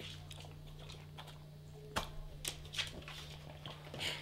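Two dogs moving about on a hardwood floor: faint, scattered clicks and taps of claws on the boards, with a short sniff near the end.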